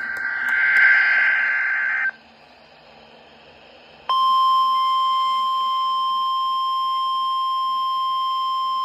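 NOAA Weather Radio emergency alert sequence. A burst of SAME digital header data cuts off about two seconds in. After a short gap, the steady 1050 Hz warning alarm tone starts suddenly about four seconds in and holds.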